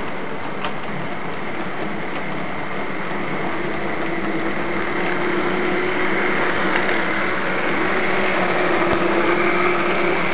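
HO-scale model train running past: the locomotive's electric motor hums and the wheels rumble on the track. The sound grows a little louder in the second half as the locomotive and freight cars go by close.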